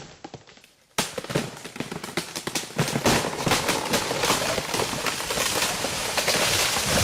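Dense, irregular crackling and snapping of breaking wood and branches. It starts suddenly about a second in and grows louder.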